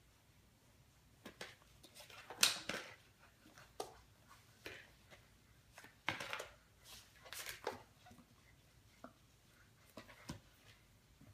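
Jigsaw floor-puzzle pieces being picked up, tapped and slid on a hardwood floor: irregular light taps and scrapes with short pauses, the loudest about two and a half and six seconds in.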